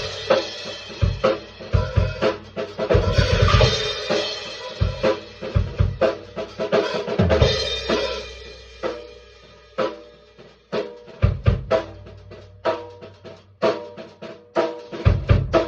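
Drum kit played freestyle: kick drum, snare and cymbals in a busy run of strikes for the first half, thinning out to sparser, spaced hits later.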